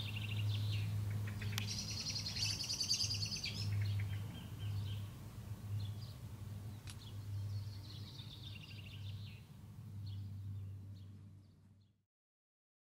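Low, steady hum of a quadcopter's motors and propellers, with birds singing in high trills over it, once about two seconds in and again about seven seconds in. The sound fades and stops about twelve seconds in.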